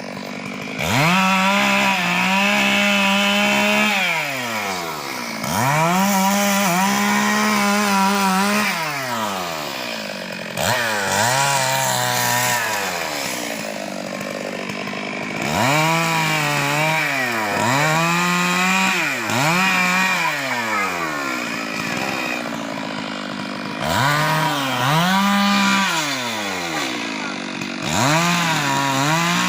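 Chainsaw cutting wood, revved to full throttle in repeated bursts of two to three seconds, its pitch wavering under load and dropping back toward idle between cuts.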